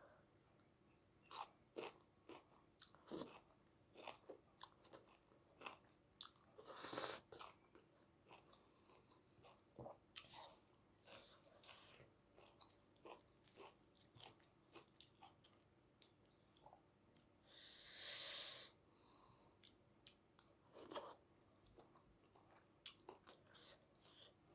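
Faint, close-miked mouth sounds of a person eating rice and curry: soft chewing and lip smacks heard as many scattered small clicks, with two longer breathy sounds about seven and eighteen seconds in.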